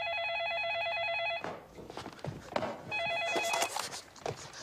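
Landline telephone ringing with a rapid electronic warbling trill. It gives one long ring and then a second, shorter one that stops as the receiver is picked up.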